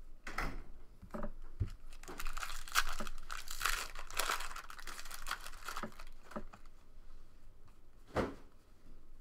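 Foil wrapper of a Bowman Jumbo trading-card pack torn open by hand and crinkling, loudest from about two to five and a half seconds in. A few short taps of cards being handled come before it and near the end.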